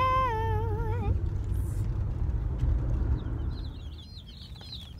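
Low rumble of a car interior, with a child's drawn-out, wavering voice for about the first second. From about three seconds in, rapid high bird chirps repeat as the rumble fades.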